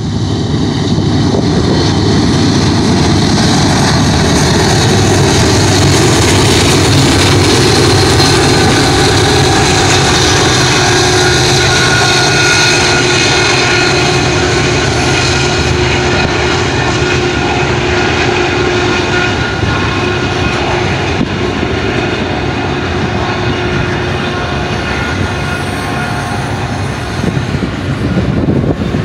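BNSF intermodal freight train passing at speed: the diesel locomotives go by loudest in the first third. The steady rolling noise of double-stack container cars follows.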